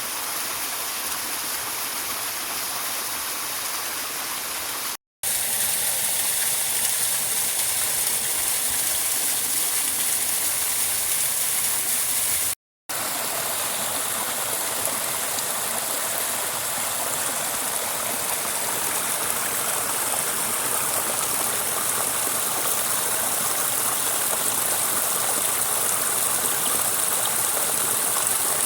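Steady rushing of running water, a stream or small waterfall. The sound cuts out completely twice for an instant, about five seconds in and again near the middle, and is a little louder after each break.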